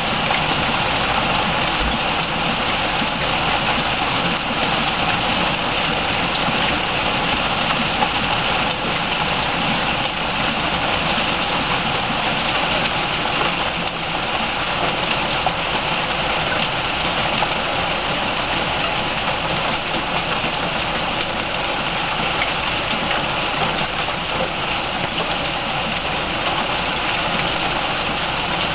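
Heavy rain pouring steadily, a dense even hiss that holds without a break.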